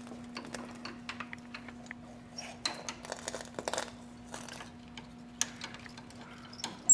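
Metal tool clicking and scraping against the well of a Linotype's hot metal pot as a T-handled cleaning tool is worked down into it, irregular small ticks bunched together midway, over a steady low hum. A sharp click right at the end.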